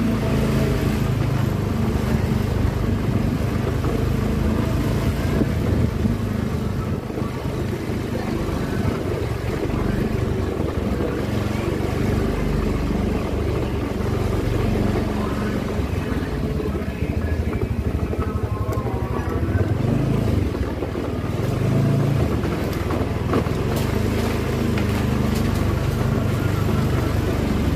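Motorcycle engine running steadily at low revs, a continuous low drone.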